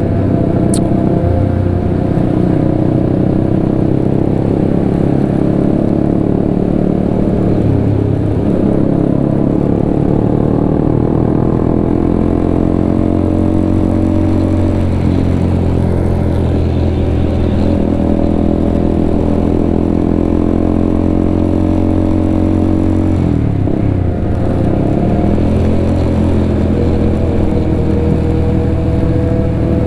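Honda CBR150R single-cylinder motorcycle engine running under way, its pitch drifting gently up and down with the throttle. About three-quarters of the way through it drops sharply and comes back up as the throttle is rolled off and reopened.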